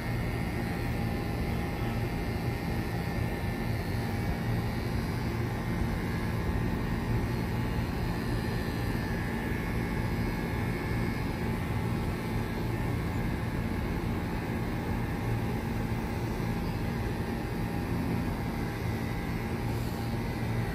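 Electric hair clippers buzzing steadily with a low hum while a head is shaved bald.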